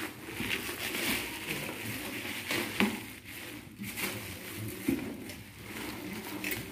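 Clear plastic packaging crinkling and rustling as hands pull at it in a cardboard box, with a couple of light knocks.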